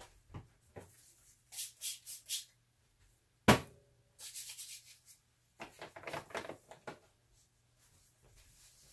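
Handling noises: a few short rustles, then one sharp knock with a brief ring about three and a half seconds in, followed by more scattered rustling and clatter.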